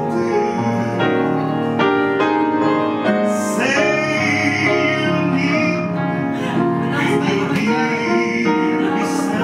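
Upright piano accompaniment playing sustained chords, with a singing voice over it that wavers with vibrato and is strongest in the middle.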